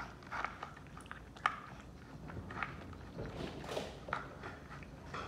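A bulldog-type dog eating from a plastic bowl: irregular wet chewing and smacking, a few bites a second, with a sharper click about one and a half seconds in.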